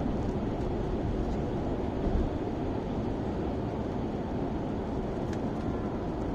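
Steady cabin noise inside an Airbus A350 in flight: the even rush of engine and airflow noise through the fuselage, strongest in the low range.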